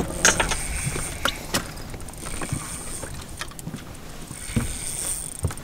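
Scattered short knocks and clicks of fishing gear being handled aboard a boat, over a low steady rumble.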